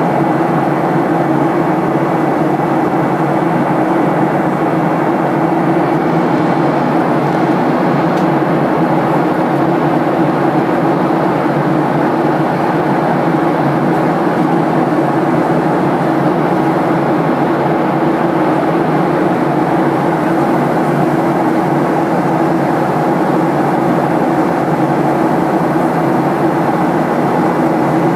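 Steady engine and airflow noise inside the cabin of a Boeing 737-800, with a constant low hum running under a broad rush.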